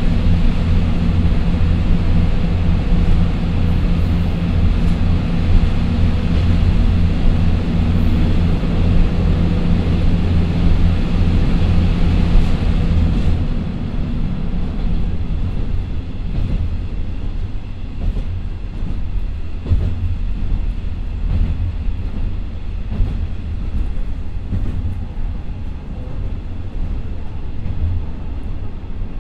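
Interior sound of a JR Shikoku KiHa 54 diesel railcar climbing a grade, with its twin Niigata DMF13HS diesel engines running steadily over the rumble of wheels on rail. About halfway through, the engine sound drops back, and the clicks of wheels on the rail come through more plainly.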